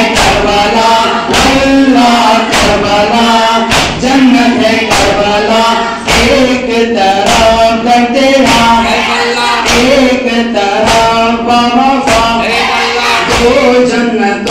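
Shia noha (mourning lament) chanted by a group of men, with sharp slaps of matam chest-beating keeping a steady beat about once every second or less.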